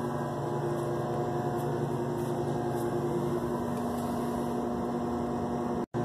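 Steady mechanical hum made of several held tones, with a brief drop to silence near the end.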